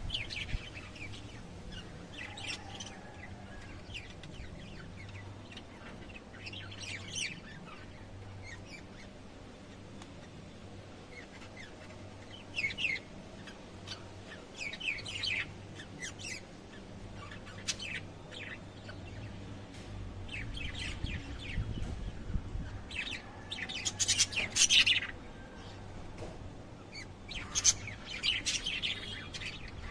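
Lovebirds chirping in short, scattered clusters of high calls, busiest and loudest about three-quarters of the way through and again near the end.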